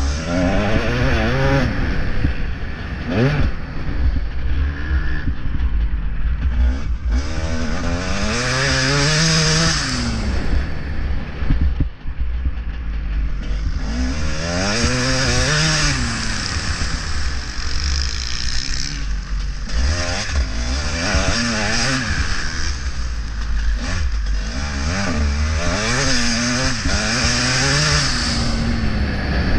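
Motocross bike engine heard onboard, revving hard and easing off again and again as the rider accelerates and shifts through the gears, its pitch rising and falling in long sweeps. A constant low rumble lies under it throughout.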